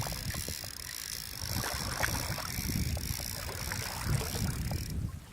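River water splashing and wind buffeting the microphone, with scattered light clicks.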